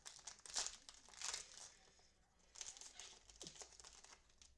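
Faint crinkling of trading-card pack wrappers being handled, in three short bursts.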